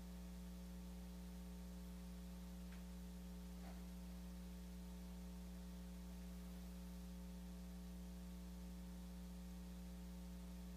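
Faint, steady electrical mains hum with a light hiss, low and unchanging.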